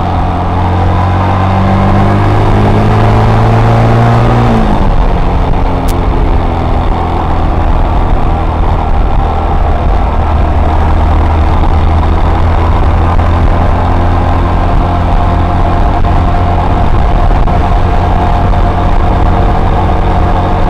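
Suzuki Marauder 125's single-cylinder four-stroke engine running through its stock exhaust while riding. About five seconds in the engine note drops, then it runs on at a steady, lower pitch.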